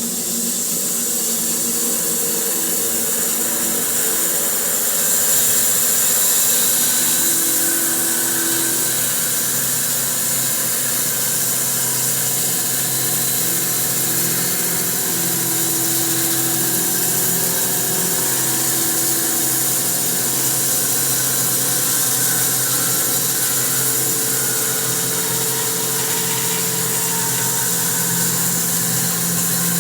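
Electric bandsaw mill running steadily, its tungsten carbide tipped band blade sawing a slab off a spalted maple log, with a strong high hiss over the motor's hum.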